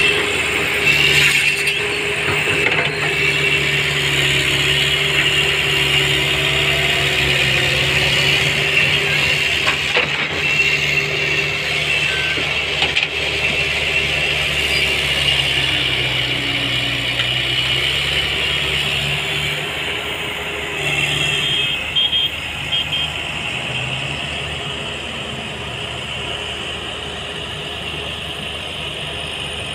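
Tata tipper truck's diesel engine running as the truck drives over rough field ground: a steady drone whose pitch shifts slowly, easing off somewhat in the last few seconds.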